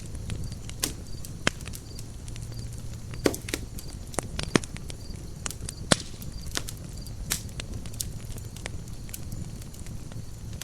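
Campfire burning: wood crackling and popping in irregular sharp snaps, a few of them much louder, over a low steady rumble of the fire.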